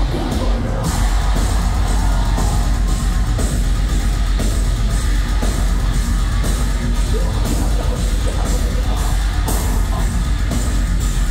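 Live nu-metal band playing loud: heavy distorted guitars and pounding drums with a hard accent about once a second, under shouted vocals, heard through the PA from within the crowd.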